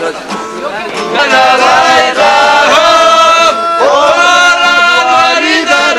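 A group of men singing a song together, with an acoustic guitar strummed along. Chatter gives way to the singing about a second in.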